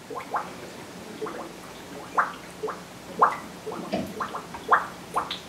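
Distilled water draining through a filling funnel into a PC watercooling loop's reservoir, gurgling in short, irregular glugs about two a second as air from the loop bubbles back up: the loop is filling and bleeding air. A faint steady hum runs underneath.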